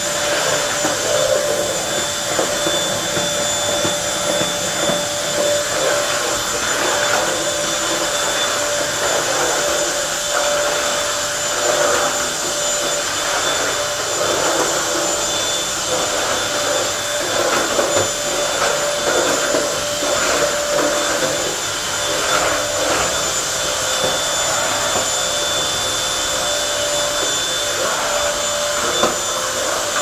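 Bissell 3-in-1 Turbo corded stick vacuum running steadily as its floor head is pushed over a tile floor, a constant motor whine.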